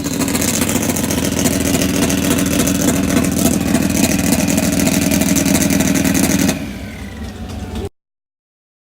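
Drag-racing car engine at full throttle, loud and sustained for about six and a half seconds, then dropping away; the audio cuts off about eight seconds in.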